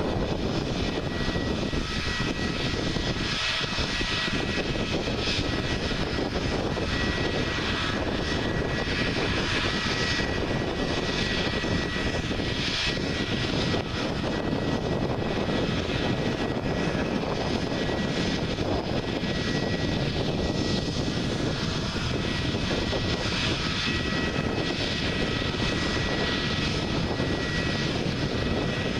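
Airbus A320neo's CFM LEAP-1A turbofan engines running steadily at low taxi power as the airliner rolls slowly along the runway: an even jet rush with a thin, steady high whine above it.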